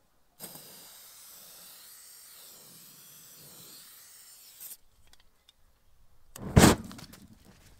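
Aerosol can of starter fluid spraying in one steady hiss for about four seconds into the gap between a deflated lawn-tractor tire's bead and its rim, to prime it for igniting the bead back onto the rim. About two seconds after the spray stops comes a single short, loud thump.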